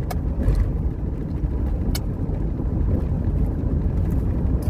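Road and engine noise heard from inside a moving car's cabin: a steady low rumble, with one sharp click about two seconds in.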